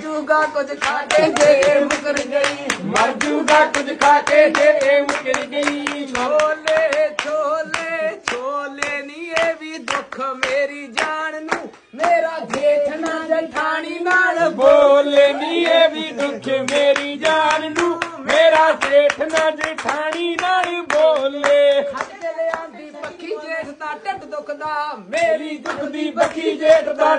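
Women singing Punjabi boliyan folk couplets to steady, rhythmic hand clapping, with a brief break about twelve seconds in.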